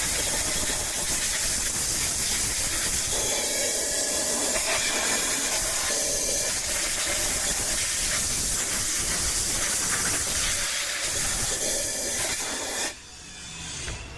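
Compressed-air blow gun blasting dirt off a Husqvarna 525L string trimmer: a steady, loud hiss that cuts off about a second before the end.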